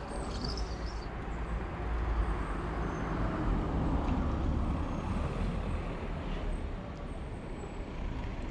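Road traffic: a steady rumble of passing vehicles that swells for a few seconds midway, then eases.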